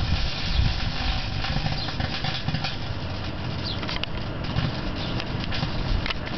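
Microwave oven running with a steady hum while tin foil inside arcs, giving irregular crackling clicks and snaps.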